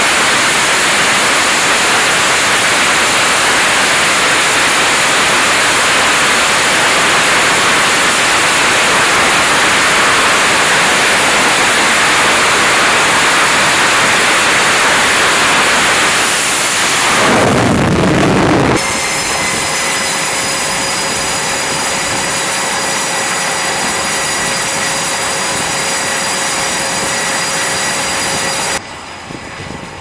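F/A-18 Super Hornet jet engines running at close range on a carrier flight deck: a loud, steady roar that swells briefly about seventeen seconds in, then carries a high whine of several steady tones until it cuts off abruptly near the end.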